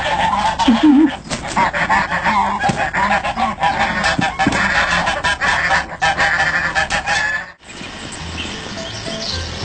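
Domestic goose honking loudly over and over, agitated calls from a goose on the attack. The honking cuts off suddenly near the end.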